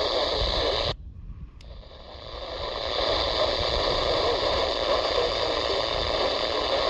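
Radio static hiss from a weather radio receiver. About a second in it cuts out almost completely, a click follows, and the hiss swells back over the next couple of seconds.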